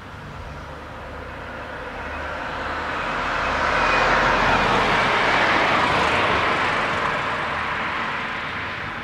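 A vehicle passing by: a rushing noise that swells over several seconds, peaks around the middle, then fades away.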